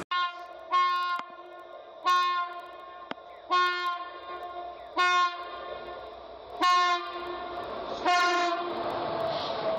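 Train horn sounding about seven short single-pitch blasts, roughly one and a half seconds apart, with the steady rumble of the moving train beneath and after the last blast.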